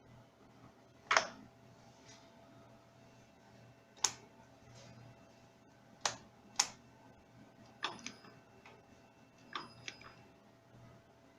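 Sharp clicks, about eight, scattered and some coming in quick pairs, over a faint steady electrical hum; no motor is running.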